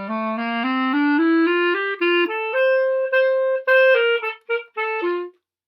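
Solo clarinet playing a phrase: a quick stepwise scale climbing note by note, then a couple of longer held notes and a few short, separated notes, ending on a lower note.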